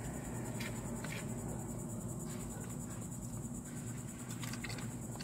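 Steady low hum inside a car cabin, with a constant high insect buzz from outside, like crickets, and a few faint clicks and rustles from eating and handling napkins.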